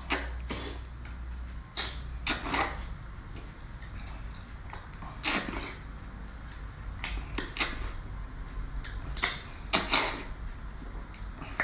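Close-up mukbang eating sounds: wet slurping and chewing of octopus tentacle in chili-oil sauce, in irregular bursts, with the loudest slurps about two and a half, five and ten seconds in. A low steady hum runs underneath.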